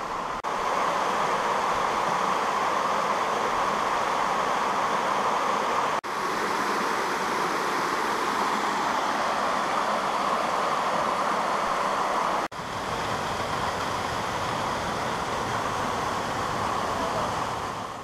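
Stream water rushing steadily down a rocky cascade. The sound drops out for a moment three times and fades out at the end.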